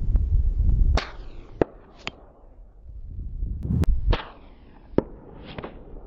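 .22 LR Sears Model 41 single-shot bolt-action rifle firing twice, about three seconds apart, each crack trailing off in a short echo, with sharper ticks in between. A low rumble fills the first second.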